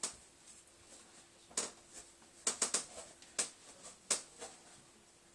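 About eight short, sharp clicks and taps at irregular intervals, with a quick cluster of three about two and a half seconds in, over a faint steady hum.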